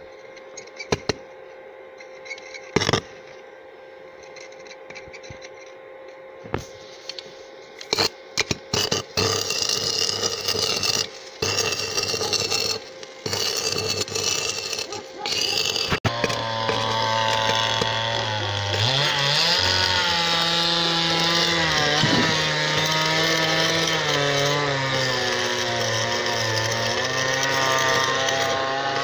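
Stick welding inside a steel tractor sleeve: the arc crackles in short bursts that start and stop as the electrode strikes and goes out. From about halfway an engine runs without a break, its pitch wavering up and down.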